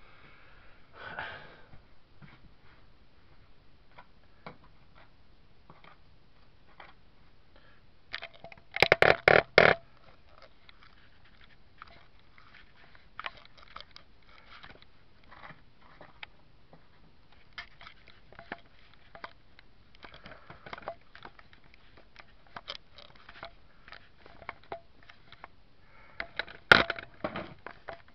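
Handling noise from close by: scattered clicks, taps and rustles, with a burst of rapid clicking about nine seconds in and another near the end.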